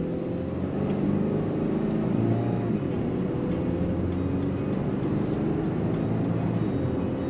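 Cabin sound of a 2024 Volkswagen Atlas with a 2.0-litre turbocharged four-cylinder engine under way: a steady engine hum over road noise.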